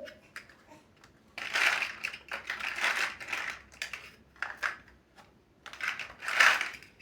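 Plastic building bricks rattling and clicking as the pieces are handled. There are two longer bursts of rattling, with a few sharp clicks in between.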